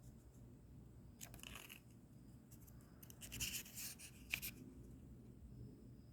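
Faint rustling of paper being handled, likely the watch's small instruction booklet, in two short bursts about a second in and around three to four seconds in, with a sharp click near the end of the second burst.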